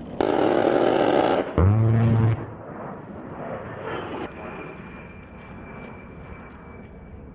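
A-10 Warthog firing its GAU-8 Avenger 30 mm Gatling gun: a loud harsh burst of about a second, followed at once by the gun's low buzzing 'brrrt' for under a second. Afterwards the steady whine of the jet's TF34 turbofan engines goes on.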